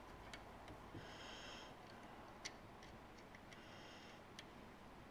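Near silence with a few faint small clicks, the clearest about halfway through, as small metal nuts and bolts are handled and threaded by hand. Soft breathing through the nose is heard twice.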